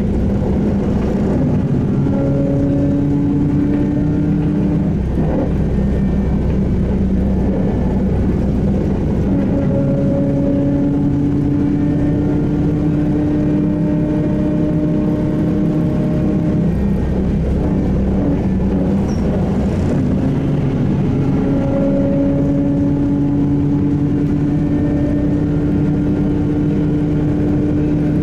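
SVARZ-MAZ-6235.00 trolleybus running, heard from inside: a steady rumble with a steady droning tone that comes in and drops out three times, several seconds each.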